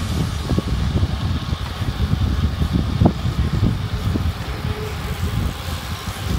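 Wind buffeting the microphone of a camera carried on a moving bicycle: a loud, ragged low rumble, with a few sharp knocks, the loudest about three seconds in.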